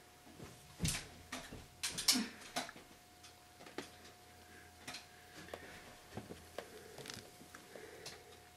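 Cat eating dry kibble off the carpet: soft, irregular crunching clicks, the loudest about a second and two seconds in, over a faint steady hum.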